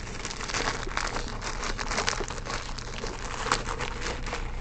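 A sealed packet of camcorder accompaniments being handled and opened, its wrapping crinkling and crackling irregularly.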